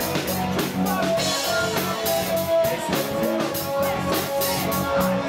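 Live rock band playing a song, with held guitar notes over a steady drum beat.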